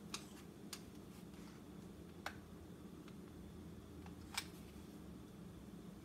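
Hot glue gun and glue stick being handled while the jammed stick is cleared and the gun reloaded: a few short plastic clicks, the loudest about four seconds in, over a faint steady hum.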